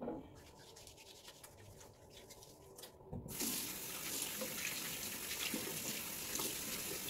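Faint rubbing and light ticks of hands being worked together. About three seconds in, a bathroom basin's mixer tap is turned on, and a thin stream of water runs steadily over the hands into the sink.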